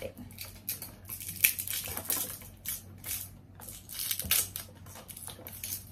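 Plastic toner bottle being opened by hand: irregular crackling and clicking as its cap and wrapping are worked loose.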